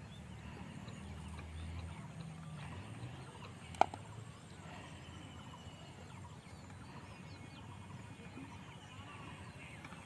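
Faint outdoor ambience with small bird chirps, and one sharp click about four seconds in.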